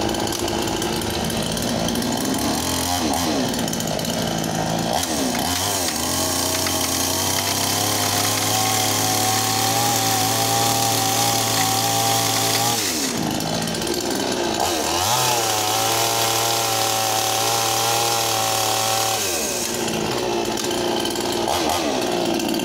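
Gilardoni GDCS58, a 58 cc two-stroke chainsaw, cutting thin pallet wood. It runs at lower revs, revs up about a quarter of the way in and holds high revs for about seven seconds through the cut, drops back, then revs up again for a second cut of about four seconds before falling back to lower revs near the end.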